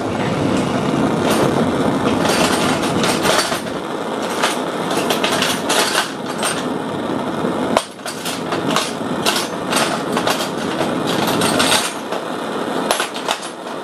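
Homemade copper methylated-spirits vapour burner (a Supa Burner) running flat out, blowing a fierce flame with a steady rushing noise. Scattered clicks and knocks of metal sound over it, more of them in the second half.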